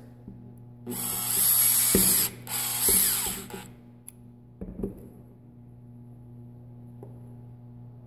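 Cordless drill running in two short bursts of a second or so each, spinning a twist-on wire connector onto a pair of stripped wires with a driver bit; a couple of light knocks follow.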